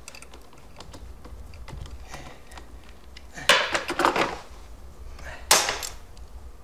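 Two bursts of clattering metal and plastic, about two seconds apart, as a screwdriver and vice grips tighten the bolts that hold a scooter trunk box to its rack.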